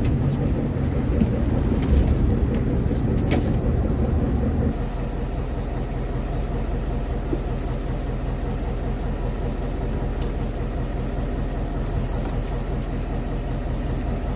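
A fishing boat's engine running steadily with a low hum, a little quieter from about five seconds in. A few light clicks sound over it.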